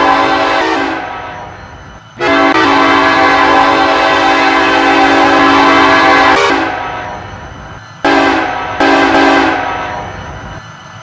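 Diesel freight locomotive's multi-chime air horn sounding: the end of one blast, a long blast of about four seconds, then two short blasts in quick succession, each trailing off in echo.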